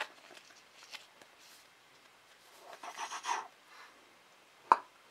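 Soft plastic rubbing and rustling as a trading card is slid into a clear plastic card sleeve, with a few light clicks and one sharp tap near the end.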